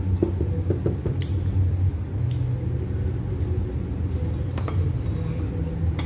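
Metal fork clinking lightly against a plate a few times while eating pizza, over a steady low hum.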